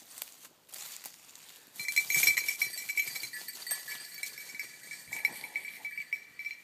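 A dog's collar bell jingling, starting suddenly about two seconds in as the dog moves, with a high ringing that keeps going.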